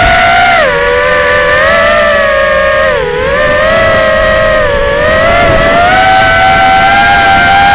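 Electric motor and propeller of a radio-controlled aircraft flying 3D aerobatics, giving a loud, steady whine whose pitch follows the throttle. The pitch dips twice, about 3 and 5 seconds in, then climbs gradually near the end.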